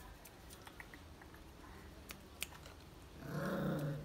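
Light clicks of puppies' claws on concrete, then near the end a puppy gives one short, low growl lasting under a second.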